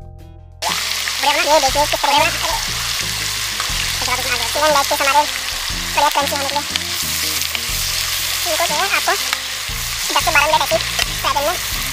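Chicken drumsticks sizzling as they fry in a pan of melted butter, stirred and turned with a slotted metal spatula. The frying cuts in sharply about a second in and runs steadily, with background music underneath.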